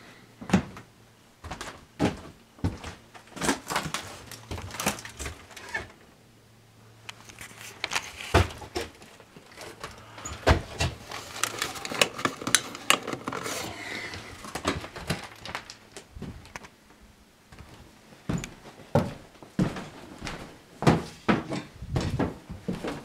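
Irregular knocks and thuds of footsteps on bare wooden floorboards in a small cabin room, with scuffing and knocking of handled fittings; some knocks are sharp and loud.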